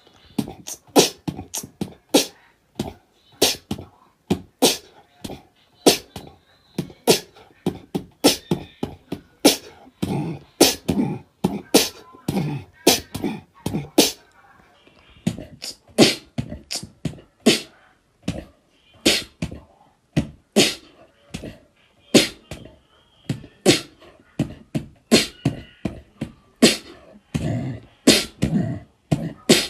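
Beatboxing: a fast rhythm of sharp mouth-made clicks and snare-like hits, several a second, with deep kick-like thumps in places.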